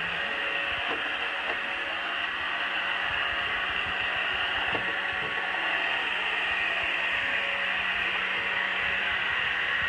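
Pure Clean robot vacuum running on carpet, a steady whir from its motor and brushes with a few light clicks.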